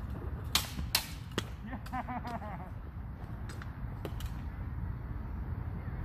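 Backswords clashing in a fencing bout: three sharp clacks over about a second, starting half a second in, then a few fainter clicks around four seconds.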